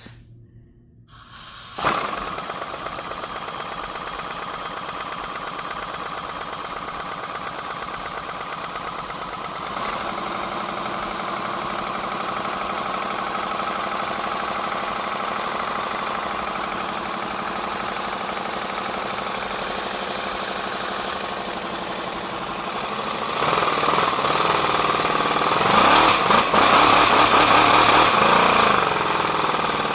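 3D-printed V4 compressed-air engine starting about two seconds in and running steadily, its two exhausts stuffed with paper towels as mufflers. Near the end it gets louder and its pitch wavers up and down as its speed changes.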